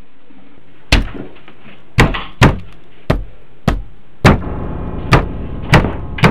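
Heavy knocking on a door, about nine loud blows at uneven intervals. Eerie background music with low sustained tones comes in about four seconds in.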